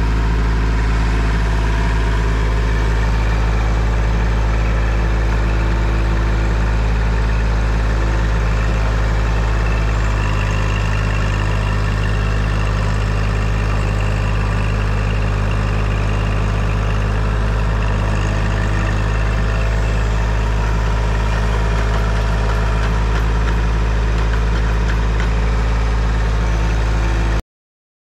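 Kubota L2502 tractor's three-cylinder diesel engine running steadily as it drives a post-hole auger. The sound cuts off suddenly near the end.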